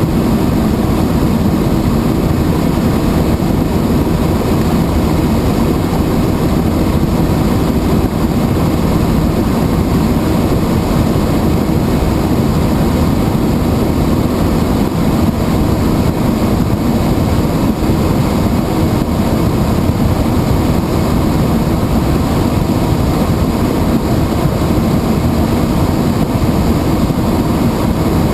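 Helicopter in flight: a loud, steady drone of engine and rotor that holds unchanged throughout.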